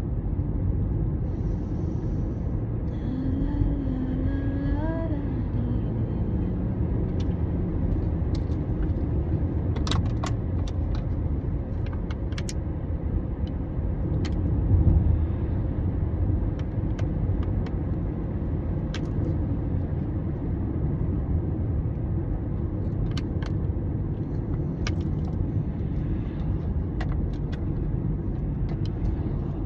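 A steady low rumble, typical of traffic or wind on the microphone, with scattered light clicks and a brief wavering tone about four seconds in.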